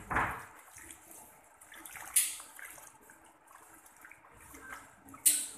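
Handheld salon shower sprayer running water over wet hair into a backwash basin while a hand works through the hair. There are two brief, loud hissing splashes, one about two seconds in and one near the end.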